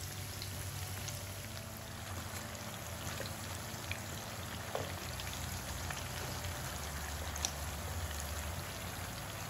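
Lumpia shanghai (pork spring rolls) deep-frying in hot oil: a steady sizzle with scattered small pops and crackles, and a low hum underneath.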